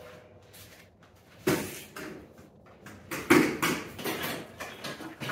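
Knocks and clatter of tools and household items being handled, moved and set down: a sharp knock about a second and a half in, then a busier run of knocks and rattling near the end.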